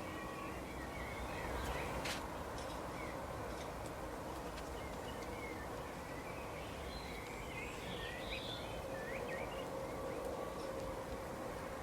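Woodland birds chirping over a steady background hiss, with short scattered chirps that grow busiest about seven to nine seconds in. A single sharp click comes about two seconds in.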